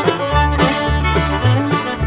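Background music with a steady beat, about two beats a second, over a bass line and a held melody.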